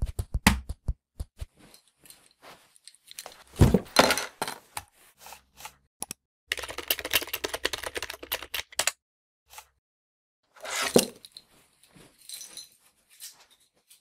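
A quick run of computer-keyboard typing about halfway through, amid scattered small clicks, with two louder short knocks, one before the typing and one after.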